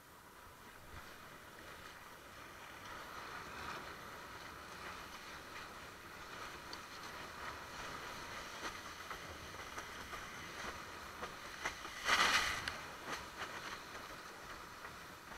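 Water rushing past a sailing longboard windsurf board, building gradually, with a short, much louder splash about twelve seconds in.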